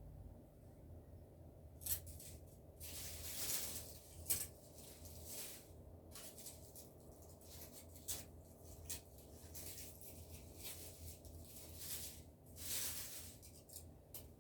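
Irregular rustling and handling noises with scattered sharp clicks, the sharpest about two seconds in and another about four seconds in.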